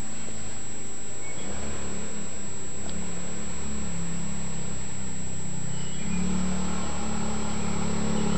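Coolster 110 ATV's small single-cylinder four-stroke engine running steadily, its note stepping up slightly about one and a half seconds in and again about six seconds in.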